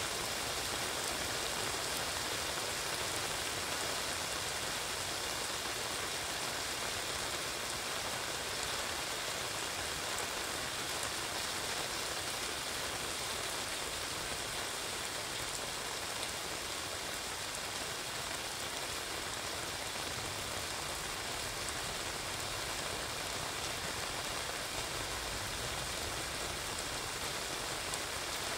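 Steady rain falling on wet pavement, heard from under an umbrella, an even wash of fine drops with no single sound standing out.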